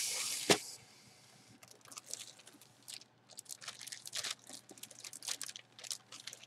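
Clear plastic bag crinkling and rustling irregularly as gloved hands handle the jersey inside it. A short hiss and a click at the start, then a moment's quiet before the crinkling begins.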